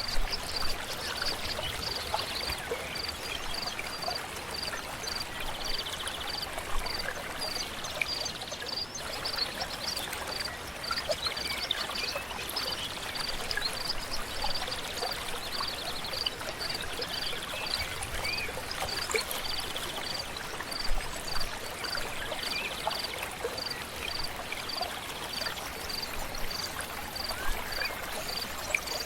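Steady rush of a flowing river. Over it, a short high chirp repeats at an even pace, about one to two a second, joined now and then by brief buzzy trills.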